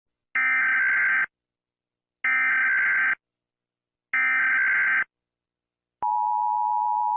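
Emergency Alert System SAME data tones: three identical bursts of shrill warbling digital data, each about a second long and about two seconds apart. About six seconds in, a steady EAS attention tone starts and holds.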